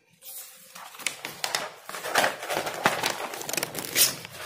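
Paper rustling as the pages of a spiral-bound notebook are handled and turned, with many small sharp ticks. It grows busier after about a second and is loudest near the end.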